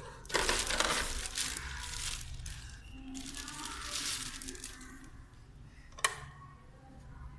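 Clear plastic packaging rustling and crinkling as parts are pulled out and handled, loudest in the first couple of seconds and then fading. A single sharp click or knock about six seconds in.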